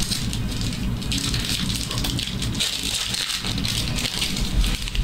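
Trading cards and their foil pack wrappers being handled: a dense crinkling rustle with many small clicks, over a low steady hum.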